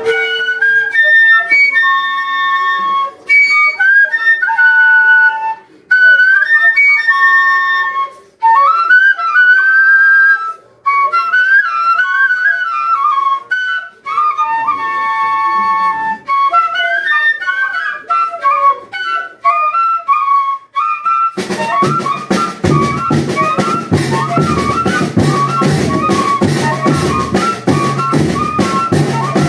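Pífano (Brazilian fife) playing a melody alone, with held and ornamented high notes broken by short pauses. About 21 seconds in, the band's drums come in with a fast, steady beat under the fife.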